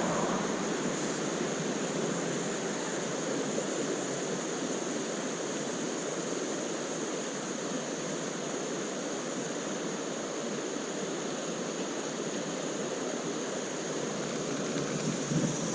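Flowing creek water, a steady, even rush with a hissy top.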